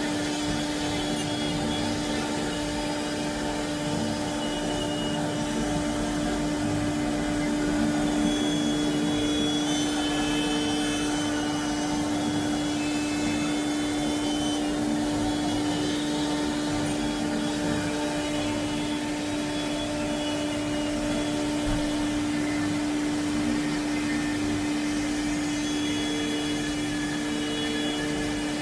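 CNC router spindle running steadily at 8000 RPM while its end mill cuts slots in 10 mm Forex PVC foam board at 1600 mm/min feed, the settings found to cut this material well. A steady hum sits over the cutting noise and the suction of the dust extraction through the brush dust shoe.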